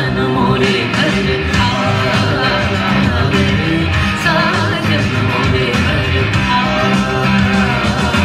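Music with a steady beat and a melody line, with no clear words.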